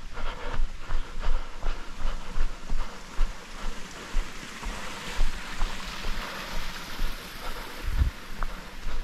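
A trail runner's footfalls, about three strides a second, picked up by the runner's GoPro, under a steady rushing noise that swells in the middle.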